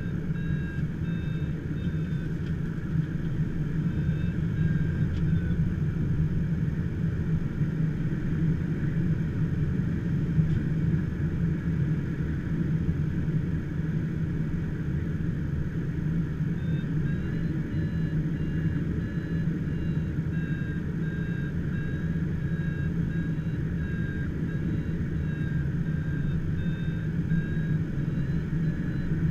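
Steady in-flight cockpit rumble inside an HK36 Dimona motorglider, with a faint high electronic tone beeping on and off over it.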